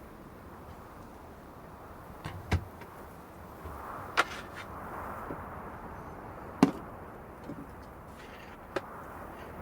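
Steady storm noise with a few sharp, irregular knocks, the loudest about two-thirds of the way in.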